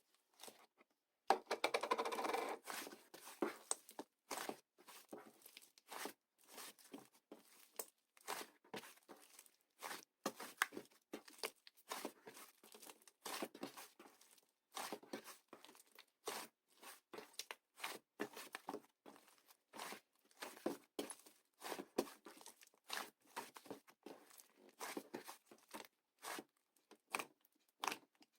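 Fluffy clay slime being squeezed and stretched by hand, making short sticky crackles and pops about twice a second, with a longer run of crackling about two seconds in.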